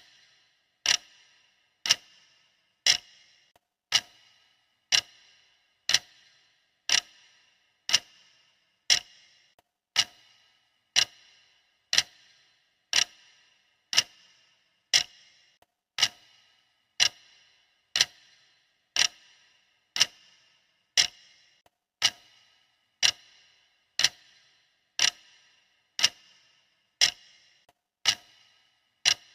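Steady clock ticking: sharp, even ticks at a regular pace, with a loud tick about once a second.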